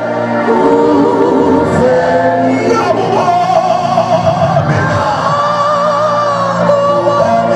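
A man singing a gospel worship song into a microphone, his voice amplified over musical accompaniment, with long held notes.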